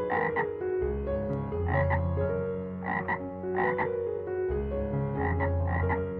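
Frog croaking in a series of short double calls, about six in all, over soft background piano music.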